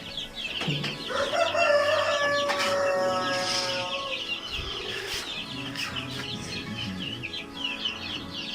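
A rooster crowing in one long call lasting a few seconds, starting about a second in, over continuous high chirping and clucking of poultry.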